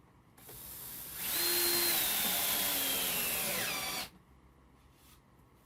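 Power drill driving a 3-inch screw into a 2x4: the motor runs for about three and a half seconds, its whine falling steadily in pitch as the screw bites in, then stops suddenly.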